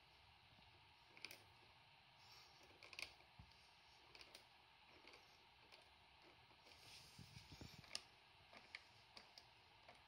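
Faint, irregular clicks and light crackling from a bicycle chain's links as it is flexed and pushed between the fingers, the clicks bunching together near the end.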